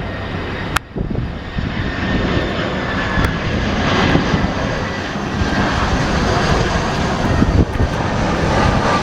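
Airplane engine noise at an airport, a steady rumble and hiss with a thin high whine, slowly growing louder. A sharp click sounds about a second in.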